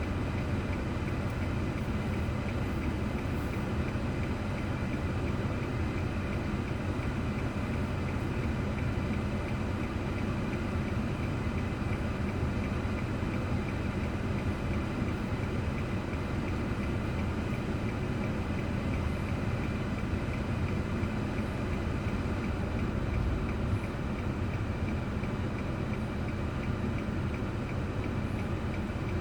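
A car's steady engine and road noise, recorded by an onboard dash camera.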